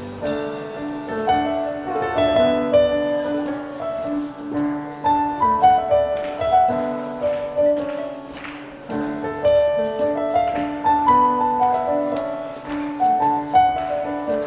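Digital piano playing a lively contra dance tune in a steady, quick rhythm, single notes of the melody running over chords.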